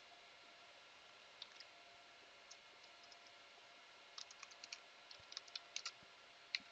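Faint computer keyboard typing: a few scattered key clicks, then a quicker run of keystrokes about four seconds in, with one sharper click near the end.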